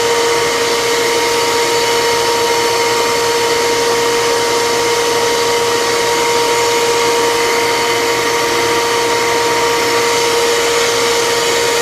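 Hercules miter saw's motor running at full speed with a steady whine, the pitch holding level with no dips from cutting.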